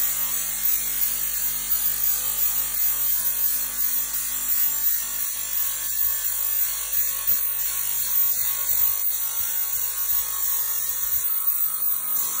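Trennjaeger UNI 9 grating saw, driven by its 37 kW Powerdrive system, running its saw blade at high speed lengthwise through steel grating, throwing sparks. A steady, high-pitched cutting noise.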